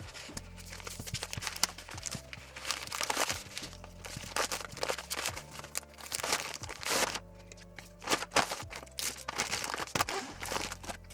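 Background music, over irregular crinkling and rustling of plastic packaging being handled.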